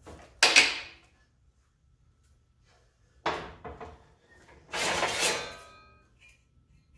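Clanks and scrapes of sheet steel being handled in a manual sheet-metal brake: a sharp clank about half a second in, another a little past three seconds, and a longer scraping clatter near five seconds that leaves the metal ringing.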